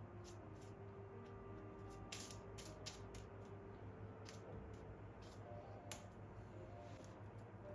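Faint, soft background music with scattered light clicks and taps of small handling sounds, a cluster of them about two to three seconds in and a sharper one near six seconds.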